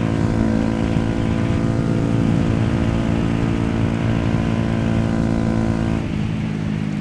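Yamaha YZF-R125's single-cylinder four-stroke engine running at a steady pitch while under way, over a steady rush of wind and road noise. About six seconds in, the engine note drops and thins out.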